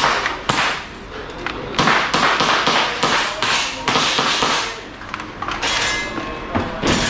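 Airsoft gas-blowback pistols firing rapid strings of sharp shots, with a short break about two thirds of the way through.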